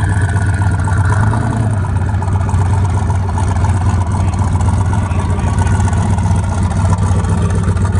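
Turbocharged V8 of a Cadillac Escalade built for about 1000 hp, idling with a loud, steady, low rumble while the truck creeps along at low speed.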